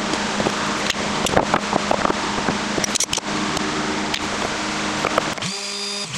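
A steady machine hum with hiss, with scattered clicks and knocks as quick-release bar clamps are handled on the wooden rocker. About five and a half seconds in, it gives way to the cleaner, higher whine of a Makita random orbit sander.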